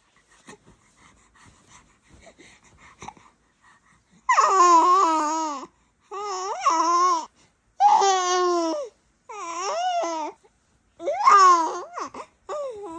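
Baby babbling in loud, high-pitched calls: after a few quiet seconds, five drawn-out sing-song utterances whose pitch swoops up and down.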